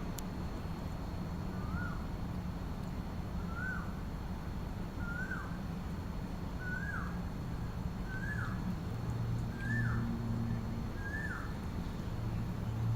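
A bird repeating one short call seven times, about every second and a half, each note rising then dropping, over a steady low rumble.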